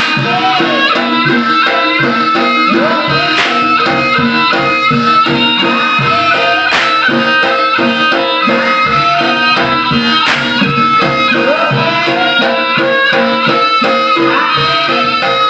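Live Javanese jaranan gamelan music with drums and sustained pitched gong and melody notes. Three sharp cracks cut through it, about three and a half seconds apart.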